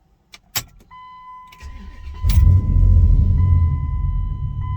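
A few clicks, then a steady electronic warning tone, then a Hemi V8 truck engine cranks and catches about two seconds in and settles into a steady idle.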